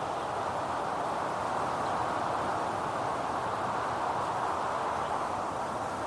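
Steady wind blowing through forest trees: an even rush of leaves at a nearly constant level, without distinct gusts.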